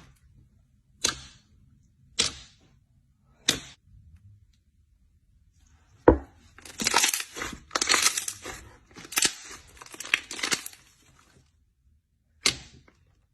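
Slime being played with by hand, giving sharp crackling pops: three separate pops in the first few seconds, a heavy thump about six seconds in, then about five seconds of dense crackling, and one last pop near the end.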